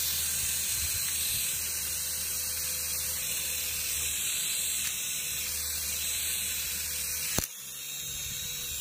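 Toy RC mini helicopter's small electric motor and spinning rotor, a steady high whir with hiss. A single sharp click comes about seven and a half seconds in.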